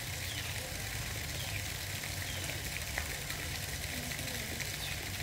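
Steady outdoor background hiss over a low rumble, with faint short high chirps scattered through it and a single faint click about three seconds in.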